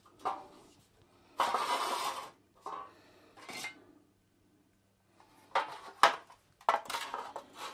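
Steel drip trays being handled and set down on a tile floor: a longer scrape about one and a half seconds in, then several sharp metallic clanks and clinks near the end.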